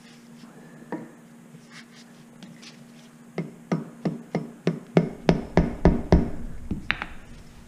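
A length of pipe slid over a motorcycle fork tube and struck down again and again to seat a new fork dust seal. About a dozen sharp, ringing knocks come at roughly three a second, loudest in the middle of the run.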